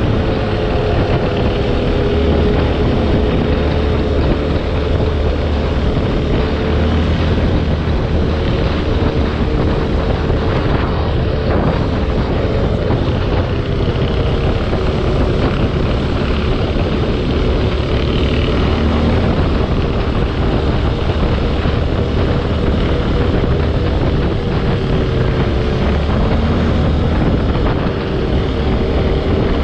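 Linhai 500 Promax ATV's single-cylinder engine running steadily under way, its pitch wavering only slightly, with a dense rushing noise over it.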